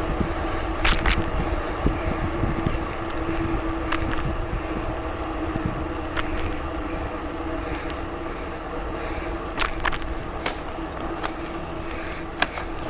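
Surly bicycle being ridden along a trail: steady tyre and riding noise with a constant hum, and a few sharp clicks and rattles from the bike.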